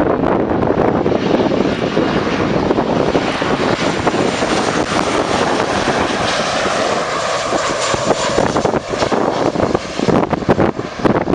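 Boeing 737-800 jet airliner's CFM56-7B turbofan engines running at approach power as it passes low on final approach, with a whine showing through about halfway. Wind buffets the microphone near the end.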